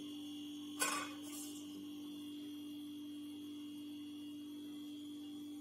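A steady low hum, with one short clink about a second in as a lemon wedge knocks against the rim of a glass mug, and a fainter rub just after.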